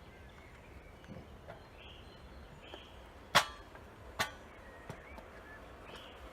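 Quiet outdoor background with two sharp clicks a little under a second apart in the middle, a smaller click after them, and a few faint short chirps.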